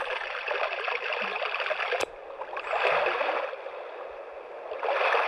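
Recorded running-water nature sound played through the small speaker of a Timex T234S alarm clock radio: a steady rushing hiss. A sharp click comes about two seconds in, after which the water sound swells and fades twice.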